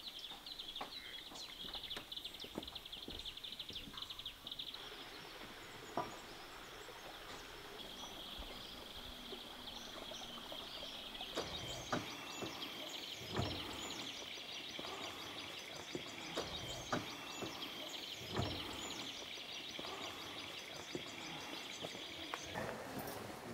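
Rainforest ambience: a steady high-pitched insect drone with scattered bird chirps and a few soft knocks.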